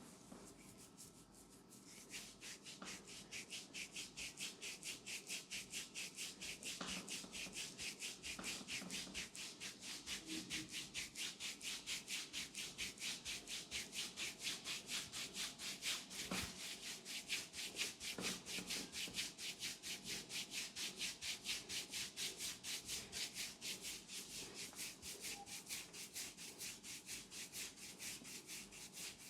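Hands rubbing rapidly back and forth in a massage, a fast, even hissing rub at about three strokes a second that starts about two seconds in.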